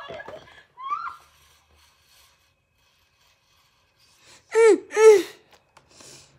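A girl bursting out laughing twice through a mouthful of water, two loud sputtering bursts that spray the water out, followed by a brief hiss.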